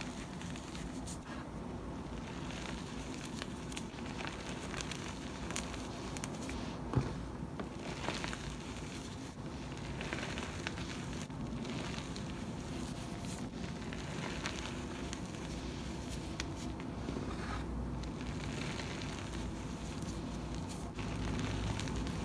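Hands squeezing and crumbling crushed gym chalk mixed with charcoal powder: a continuous dry crackling and crunching of powder and small chunks, with one sharper crunch about seven seconds in.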